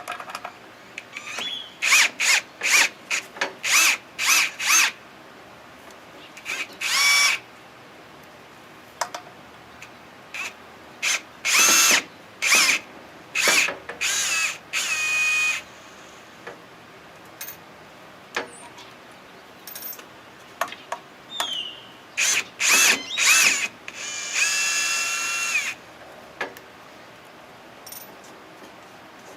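Cordless drill-driver backing out the screws that hold a lathe faceplate, its motor whining in repeated short bursts: clusters of quick trigger pulls with pauses between, and one longer run near the end.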